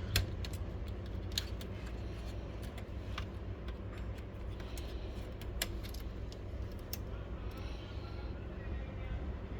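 Scattered small clicks and taps of hands working inside a laser printer's plastic chassis, unplugging the fuser wiring, over a steady low hum. The clicks come irregularly, the sharpest just at the start, about a second and a half in and a little past halfway.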